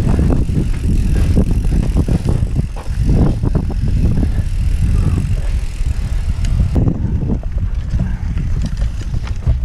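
Downhill mountain bike riding fast on a dirt trail: heavy wind rumble on the action camera's microphone, with tyre noise and frequent rattles and knocks from the bike over the rough ground. About seven seconds in, the high hiss drops away suddenly.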